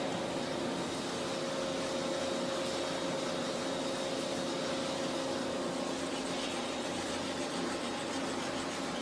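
A machine running steadily, with a constant hum over an even rushing noise.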